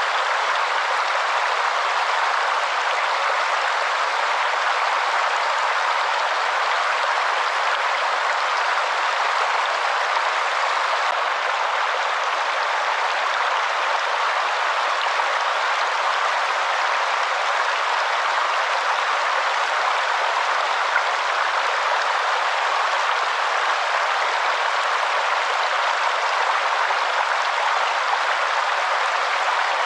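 Waterfall: steady, even rush of falling water with no low rumble.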